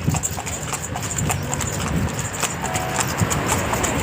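Horse's hooves clip-clopping at a steady trot, a quick run of sharp hoofbeats over a low rumble.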